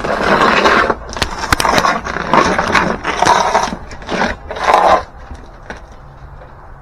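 Loud scraping and rustling in uneven bursts with sharp clicks, stopping about five seconds in.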